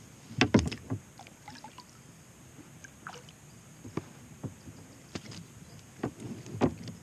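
Scattered knocks and bumps against a kayak's hull while a landed fish is handled in the boat: a cluster of sharp knocks about half a second in, single ones a few seconds later, and another cluster near the end.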